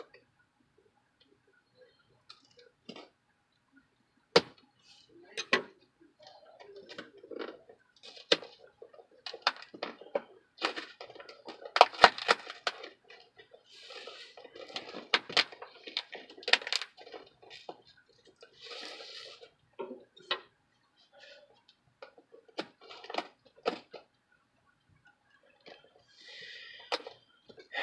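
Cardboard Priority Mail box being opened by hand: packing tape scratched, slit and peeled off, with irregular clicks, scrapes and rustles. Near the end the flaps are pulled open and paper crinkles.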